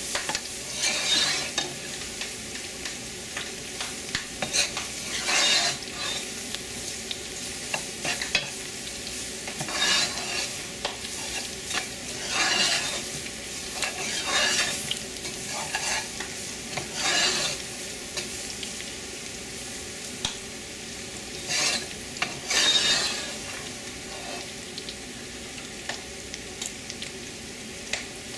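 Chopped onions, bell pepper and garlic sizzling in a dark roux as they cook down, while a spoon stirs and scrapes the bottom of an aluminum pot. The sizzle is steady, and a louder scrape comes every couple of seconds.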